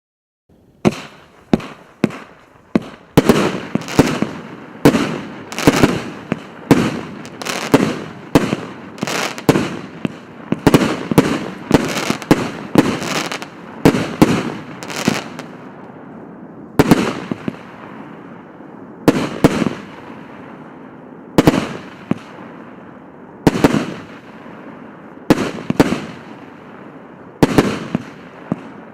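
A 150-shot consumer fireworks cake (the 'Sea of Light' battery) firing. Sharp bangs come about two a second for the first fifteen seconds, then slow to roughly one every two seconds with a steady hiss between.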